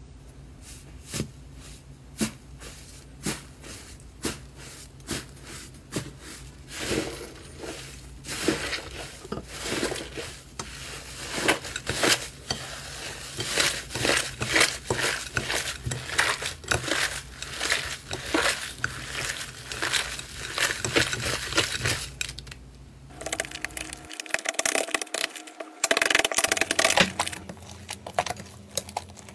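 Hands squishing and kneading a crumbly, grainy slime ('tofu dregs' type) in a glass bowl, giving dense, irregular sticky crackles and pops.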